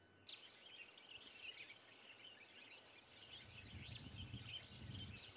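Faint natural ambience of many small birds chirping and twittering together, starting about a third of a second in, with a low rumble of wind or movement rising in the second half.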